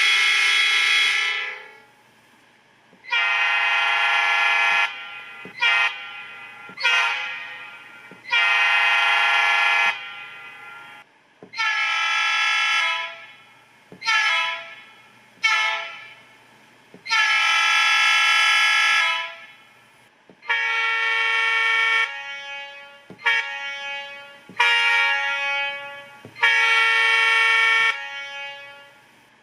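Diesel locomotive air horn sounds from a TCS WOWSound V4 DCC sound decoder: about a dozen chord blasts, some held about two seconds and some short toots.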